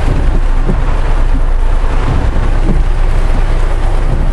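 Storm wind and heavy rain against a vehicle, heard from inside the cab as a loud, steady low rumble with a hiss of rain.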